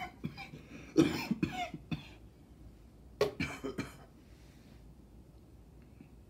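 A man coughing in fits: a cough right at the start, a run of hard coughs about a second in, and another run about three seconds in.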